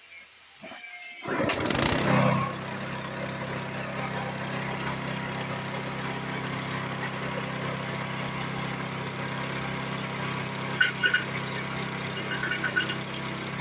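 Pulping machine starting up about a second in with a loud surge, then running steadily as it grinds brick to scour out its grinding chamber. A few short rattles come near the end.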